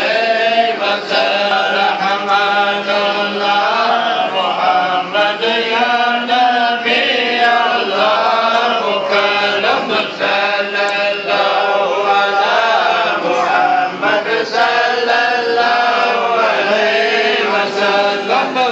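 A group of men's voices chanting together in a continuous, melodic Sufi devotional chant.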